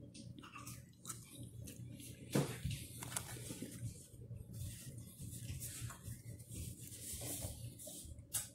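A person chewing a mouthful of sandwich close to the microphone, with soft wet mouth sounds and a few light taps and knocks, the sharpest about two and a half seconds in. A steady low hum runs underneath.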